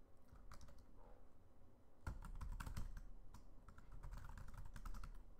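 Faint keystrokes on a computer keyboard as a line of code is typed, in quick runs with a short lull about a second in.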